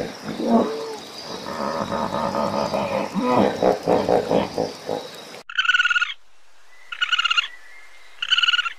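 Hippopotamus grunts and honks, low and pitched, for about five seconds. Then the sound changes suddenly to a short, high, rapidly pulsing call, repeated three times about a second and a half apart.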